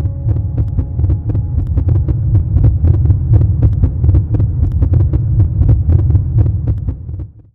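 Fireworks sound effect: a dense, loud low rumble with many sharp crackles over it, cutting off abruptly near the end.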